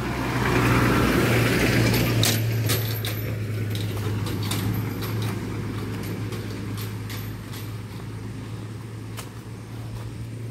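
Toyota pickup truck driving past close by, its engine and tyres loudest in the first two seconds and then easing off, while a steady low engine hum carries on. A few light clicks are scattered through it.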